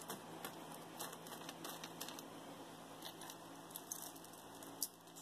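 Earrings clicking and rattling faintly against one another as a hand sifts through a pile of them: a scatter of light, irregular ticks.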